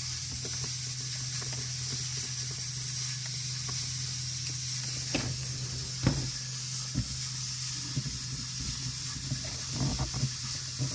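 Steady hiss with a low hum, broken by scattered small clicks and taps as a T15 Torx driver works the set screw on the back of a rear-view mirror mount.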